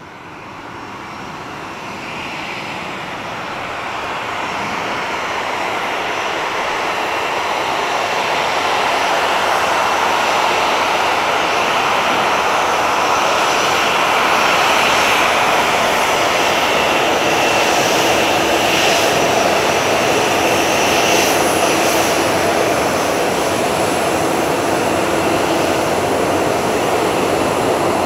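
Boeing 737-800's CFM56 turbofan engines running at taxi power: a steady jet rush with a thin fan whine on top. It grows louder over the first ten seconds as the airliner comes closer, then holds steady.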